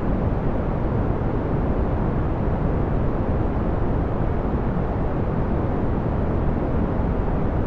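Steady brown noise: an even, unchanging rush of noise weighted toward the low end, with nothing else in it.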